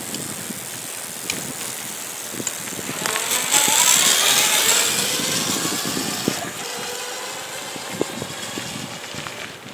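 Electric trike's 48-volt mid-drive motor whining, rising in pitch as it accelerates away about three seconds in, with a rush of noise, then fading as the trike moves off.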